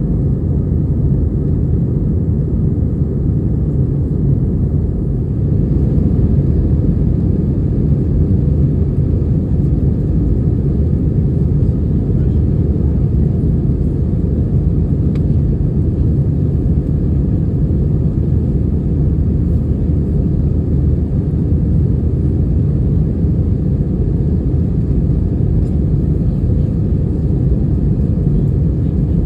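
Steady low rumble of an Airbus A320-232's IAE V2500 engines and rushing air, heard inside the passenger cabin as the jet takes off and climbs.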